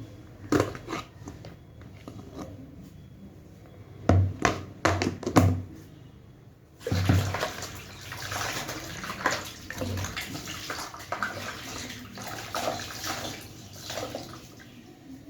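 A few knocks and clatters of objects being handled, then about seven seconds in running water starts and splashes on, with small knocks in it.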